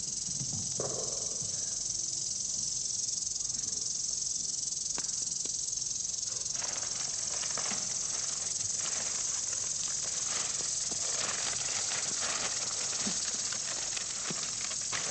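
Steady high-pitched hiss of an old television recording. From about six and a half seconds in, irregular crinkling and crackling as food is unwrapped from its wrapping and a hard-boiled egg's shell is peeled by hand.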